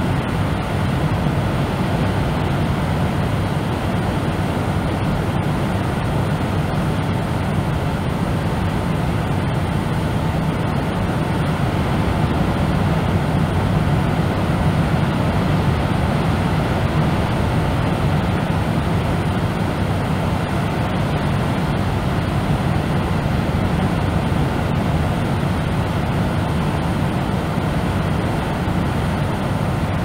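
Deep bass brown noise: the rumble of beach surf heard from inside, steady and even with no separate wave swells or breaks standing out.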